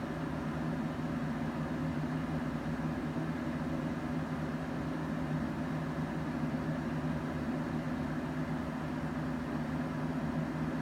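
A steady low mechanical hum with an even hiss over it, unchanging.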